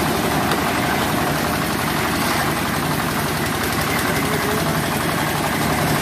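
Reversible concrete drum mixer running, its engine giving a loud, steady drone.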